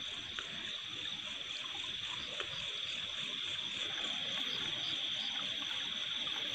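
Steady high-pitched chorus of night insects, with faint water movement and a few small clicks from hands groping among stones in shallow water.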